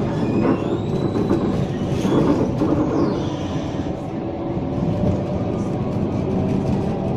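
Končar TMK 2200 low-floor tram running, a steady rail rumble with faint high whines that rise and fall, and steady humming tones coming in about five seconds in.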